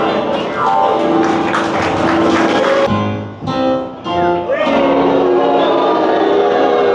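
Instrumental theatre music playing loudly; it thins out briefly about three seconds in, then swells again.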